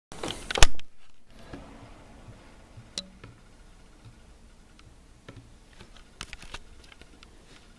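Handling noise from a handheld camera: a loud knock about half a second in, then a few faint clicks and taps.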